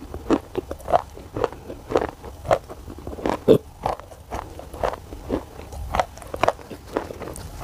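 Close-miked crunchy chewing of black shale clay: sharp crunches, about three a second, unevenly spaced.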